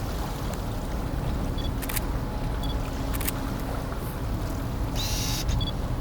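Steady low rumble of wind and a passing boat. About five short sharp clicks sound across it, with a few brief high beeps.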